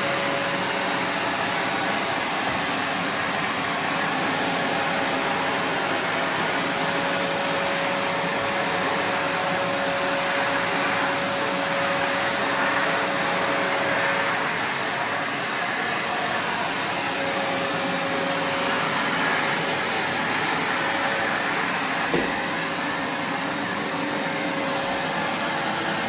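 Kärcher WD 3 wet-and-dry vacuum running steadily: an even rush of air with a constant whine held at one pitch. There is a single light knock about 22 seconds in.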